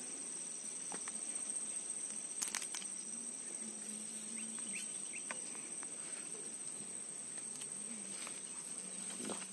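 Steady high-pitched insect trilling, with a couple of sharp clicks about two and a half seconds in and a few faint short chirps in the middle.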